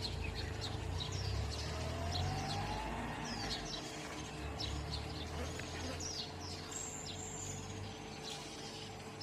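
Wild birds chirping: many short quick chirps, with one higher held whistle about seven seconds in, over a low rumble that fades out near the end.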